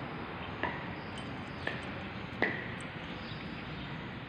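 Three short, light clinks, each with a brief ringing tone, spaced about a second apart, over a steady hum of background noise.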